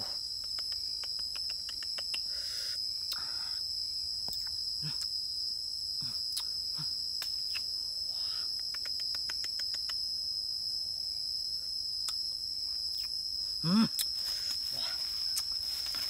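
Steady high-pitched drone of insects, with scattered small clicks and snaps of fruit being plucked from its stems and handled. A brief, louder voice-like sound that bends in pitch comes near the end.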